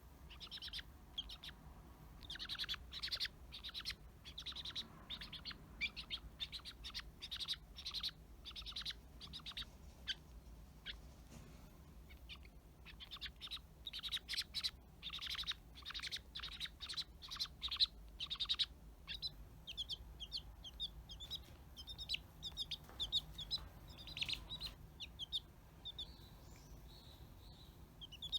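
Domestic chicken chick peeping over and over in short, high calls, in dense runs at first; from about two-thirds of the way in the calls turn into shorter, lighter cheeps.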